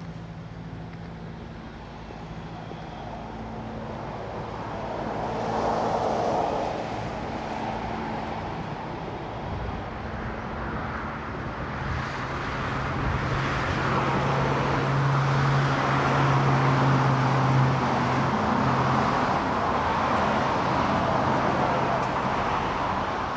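A motor vehicle engine running with a steady low hum, amid road traffic noise that swells and grows louder through the second half.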